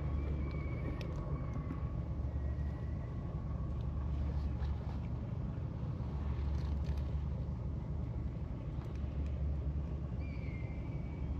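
Steady low outdoor rumble, with a few faint, thin high-pitched calls near the start and again near the end.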